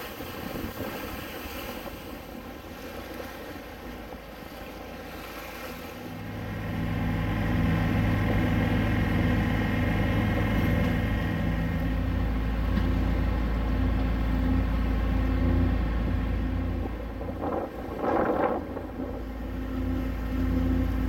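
Wind rumbling on the microphone aboard a sailboat under way, over a steady drone from the boat's engine. The wind rumble comes in strongly about six seconds in and gusts unevenly from then on.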